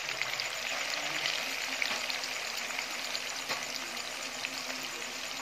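Chicken pieces sizzling steadily in hot oil in a metal wok, with constant fine crackling and spitting, as more raw pieces are dropped in by hand.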